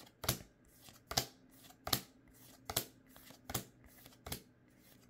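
Pokémon trading cards being slid one at a time from the front of a handheld stack to the back. Each move is a short, sharp card-on-card flick, six of them in a steady rhythm a little under a second apart.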